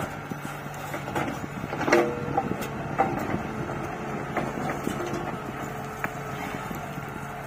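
Backhoe loader's diesel engine running steadily as the bucket digs into soil, with several knocks from the arm and bucket, the loudest about two seconds in.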